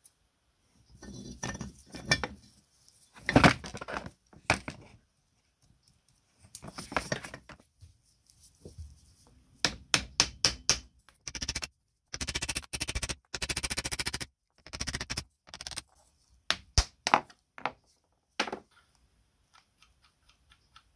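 Hand work on small metal parts: scattered knocks and clinks as pieces are handled and set down, with a few seconds of rapid, even scraping strokes near the middle.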